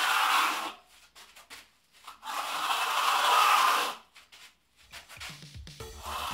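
Compressed-air plaster hopper gun spraying cement plaster onto a wall, in bursts of air hiss: one ending under a second in, a second lasting nearly two seconds in the middle, and a third starting near the end.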